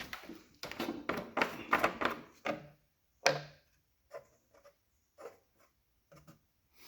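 A quick run of short knocks and clicks from hands handling the parts of an old push mower, then one sharper click about three seconds in and a few faint taps.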